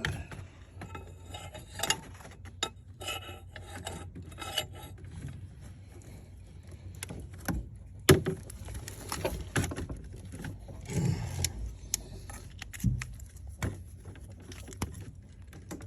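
Wrench and ratchet working against metal: irregular scraping, rubbing and clicking, with one sharp metallic clack about eight seconds in, as a plug is tightened down to about 65 lb of torque.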